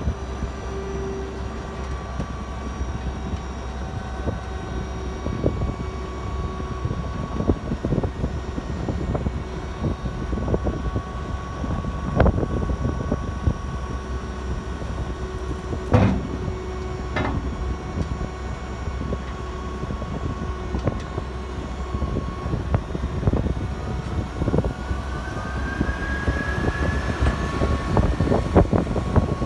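2010 Mack Metroliner tray truck running while its beavertail loading ramps are lowered, with a steady low engine rumble and a steady machine whine. Scattered clanks and knocks are heard, with a sharper one about halfway through, and a whine rises in pitch near the end as the ramps come down to the ground.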